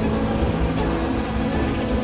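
A steady low vehicle rumble, with background music.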